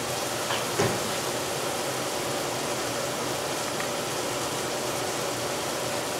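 Steady mechanical hum of a running kitchen appliance or fan, with one light knock just under a second in.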